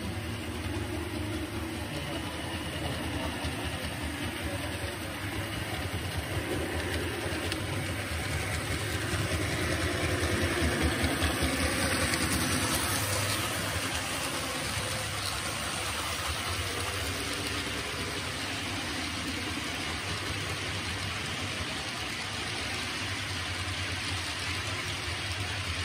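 A model freight train running past on layout track, a steady rumble of motor and wheel noise. It swells as the lead model diesel locomotives go by, loudest about eleven to thirteen seconds in, then settles into an even rolling sound as a long string of boxcars follows.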